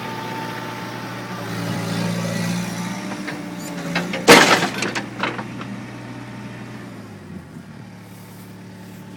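Hydraulic excavator's diesel engine running as the machine swings, its note growing louder about two seconds in. A loud, sharp burst of noise comes about four seconds in, followed by a few smaller clicks, and the engine then settles quieter near the end.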